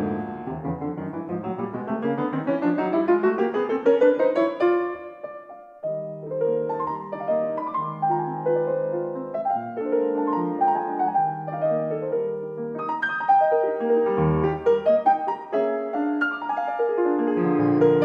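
Background piano music: quick rising runs in the first few seconds, then a slower passage of chords and melody.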